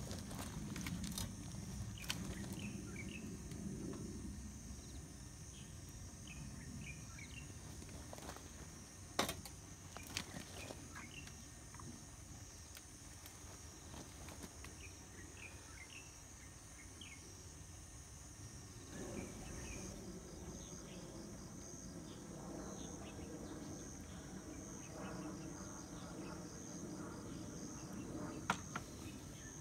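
Insects chirring steadily and high-pitched, with scattered short chirps and a few sharp clicks; a faint low hum is there at the start and comes back after about twenty seconds.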